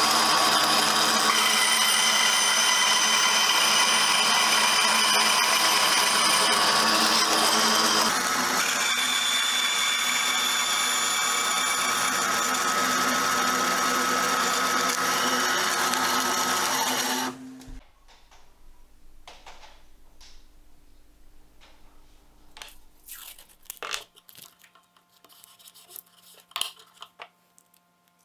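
Benchtop scroll saw running and cutting a small hardwood piece, a steady whining machine noise that shifts slightly about a third in and stops about two-thirds of the way through. After it stops, only faint clicks and taps of the work being handled remain.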